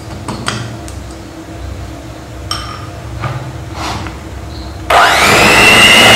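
A few knocks and scrapes as a spatula and mixer beaters touch a steel mixing bowl. About five seconds in, an electric hand mixer switches on and runs at speed with a loud high whine, its pitch rising briefly and then holding, as the beaters churn a thick butter mixture.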